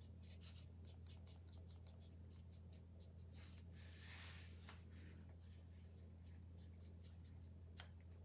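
Faint, soft scratching and tapping of a small paintbrush dabbing paint onto cut-out letters, over a steady low hum. There is a brief swish about four seconds in and a sharper tick near the end.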